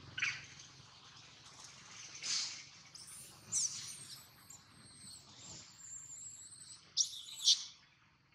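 Several short, high-pitched chirping calls with quick pitch sweeps, two of them close together near the end. A thin, steady high whine runs through the middle few seconds.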